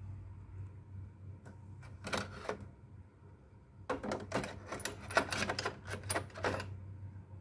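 Small glass vials clinking and rattling against each other and the plastic dividers of a mini fridge door shelf as they are handled: a few clicks about two seconds in, then a quicker run of clinks from about four seconds until near the end. A low steady hum runs underneath.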